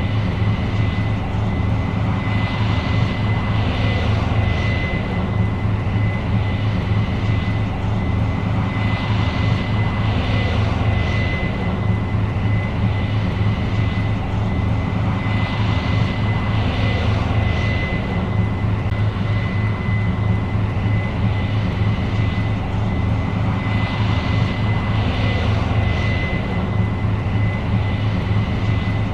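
New Holland CR 7.90 combine running steadily while harvesting corn: a deep, continuous engine and machinery drone with a constant high-pitched whine over it.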